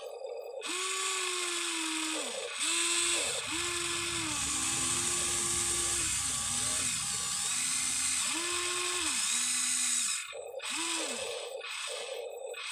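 The small electric motors and gearboxes of a Huina 1593 RC excavator whining in a series of short runs, the pitch sagging as each run stops. Rapid, even clicking of about five a second is heard before the runs begin and again near the end.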